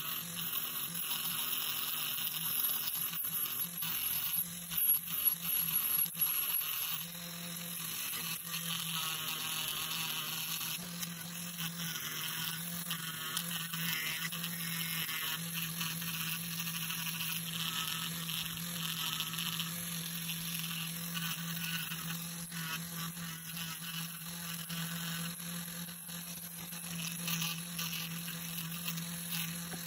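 Small pen-style rotary tool running steadily, its buffing wheel pressed against brass screwdriver parts to polish them, a steady motor hum with the rub of the wheel on the metal. A few louder, uneven bursts come about four to six seconds in.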